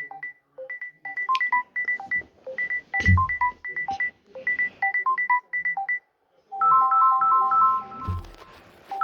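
Samsung Galaxy A14 phone playing ringtones through its speaker: a quick plinking melody of short high beeps looping about every two seconds, which stops about six seconds in. After a short pause a different ringtone with longer, smoother notes starts. Two low thumps sound, one about three seconds in and one near the end.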